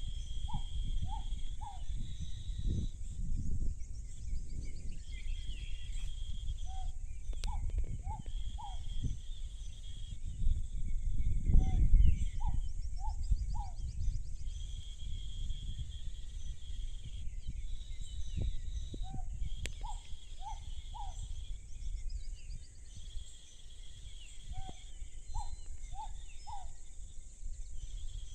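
A bird repeats a short four-note call about every six seconds: one lower note, then three quick rising notes. Behind it runs a steady high insect chirring, over a low rumbling noise that swells about twelve seconds in.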